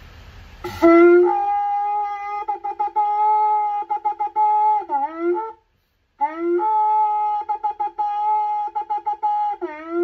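A 23.6-inch sheep's-horn shofar, newly patched, is blown in two long blasts separated by a short gap. Each blast scoops up into a steady high note, goes through stretches of rapid pulsing, and ends with a bend in pitch.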